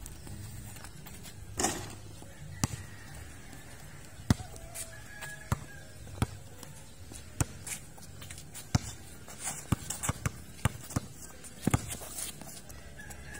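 A basketball dribbled on a concrete court: sharp single bounces at irregular intervals, roughly one a second, coming quicker for a stretch near the end.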